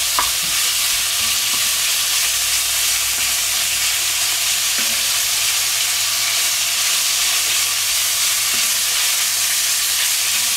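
Seasoned chunks of meat searing in fat in an enamelled pot, a steady sizzle, stirred with a wooden spatula that scrapes and knocks lightly against the pot.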